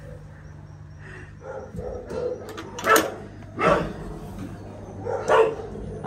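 Dogs barking: a few short barks, loudest about three seconds in, with more near three and a half and five seconds and fainter ones before them.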